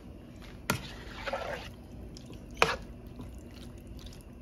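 A plastic spatula stirring raw chicken cubes in oil in a non-stick wok: two sharp knocks of the spatula on the pan, with a brief wet shuffle of chicken in oil between them.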